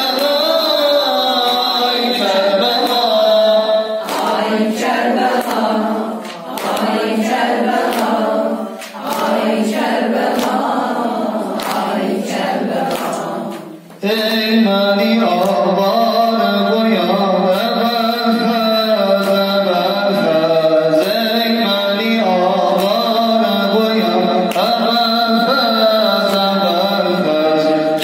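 A man chanting a religious lament for Karbala through a microphone in long sung lines. It breaks off briefly about halfway through and resumes.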